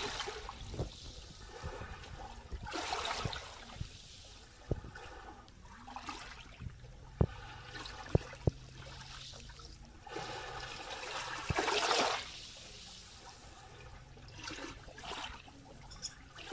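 Small waves lapping onto a shallow sandy shore, washing in and receding several times, with the biggest wash a little past the middle. A few sharp clicks come between the washes near the middle.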